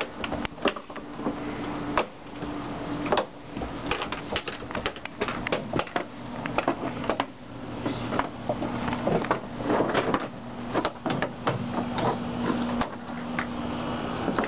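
Irregular clatter of knocks, clicks and scrapes as a Great Dane puppy drags and chews a broom across wooden deck boards, her claws clicking on the wood.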